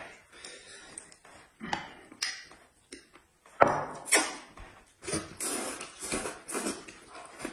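Eating sounds at a dinner table: a few short clicks and knocks of chopsticks and bowls, then about two seconds of noisy slurping and chewing as a mouthful is sucked in, about five seconds in.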